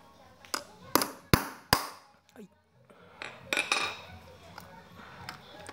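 Claw hammer tapping a steel nail held on a piece of metal spoon laid on a wooden block, four sharp strikes within about a second and a half, punching a mark to start a drill hole. Lighter metal clattering follows about three and a half seconds in.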